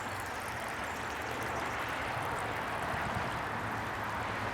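Rainwater runoff flowing along the ground after heavy rain, a steady rushing of water.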